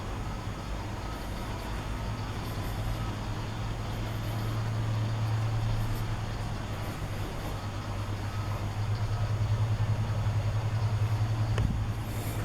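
Steady low mechanical hum with a general background haze, growing louder and pulsing in the second half.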